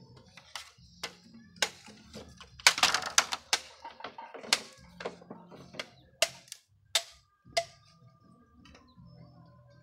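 Sharp, irregular knocks and clicks of bamboo poles being handled and struck, with a quick run of strikes about three seconds in.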